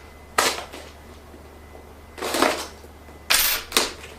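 Cardboard packaging of a YouTube Silver Play Button box being handled as it is opened: three short scraping, rustling noises about a second apart.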